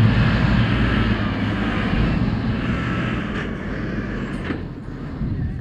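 Fire engine's pump engine running with a steady drone, slowly fading over a few seconds.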